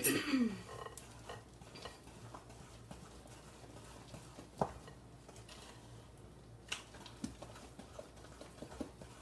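Wooden spoon stirring thick banana bread batter in a glass mixing bowl: quiet scraping with a few light knocks of the spoon against the glass, loudest at the very start.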